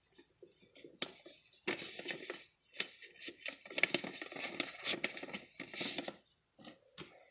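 Paper rustling in several bursts, with small clicks and crinkles, as a greeting card is handled.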